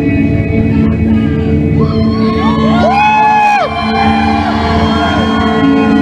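Live rock band holding a loud, steady droning chord, with wailing tones that slide up, hold and fall away between about two and five seconds in.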